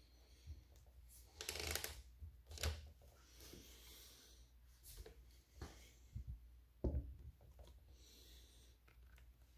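Faint handling noise of a cordless caulk gun: a few scattered clicks and knocks of its plastic body with brief rustles, the motor not running.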